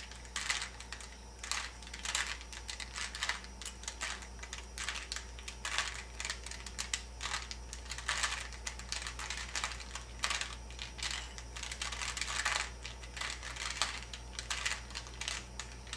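Rubik's Cube being turned through a move sequence: rapid, irregular clicking and clacking of its plastic layers as they are twisted.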